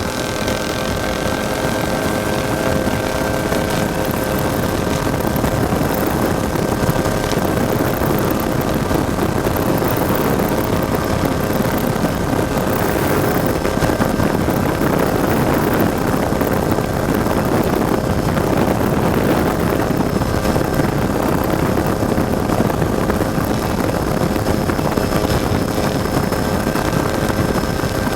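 Ford EcoBoost spec trophy truck's engine running steadily, a continuous mechanical drone with steady tones and no big revs.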